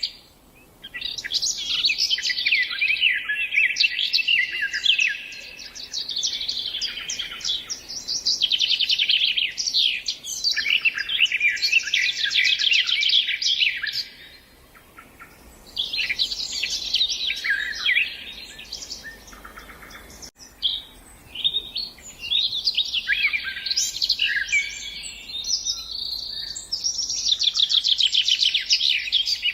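Songbird singing long, varied phrases of rapid trills and quick chirping notes, in high-pitched runs broken by a few short pauses.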